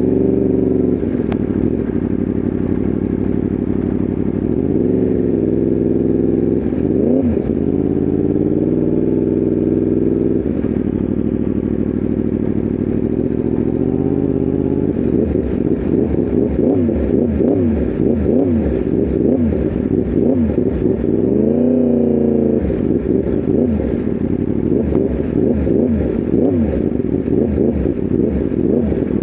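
Yamaha R1M's crossplane inline-four engine under way on the road, its note rising and falling several times and holding steady in between; the second half is busier, with the pitch wavering quickly.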